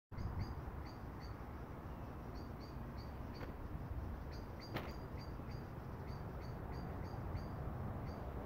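A small bird chirping one short high note over and over, two or three times a second, over a low steady outdoor rumble. A single click sounds a little before the middle.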